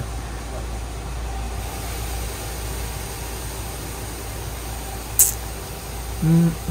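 Coin-operated rice milling machine running steadily as it polishes brown rice: a low hum under an even rushing noise. One sharp click about five seconds in, and a voice starts near the end.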